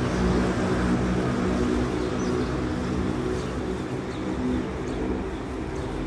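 Steady rumble of road traffic with a low engine hum. Faint, short high calls of a black bulbul come through it a few times.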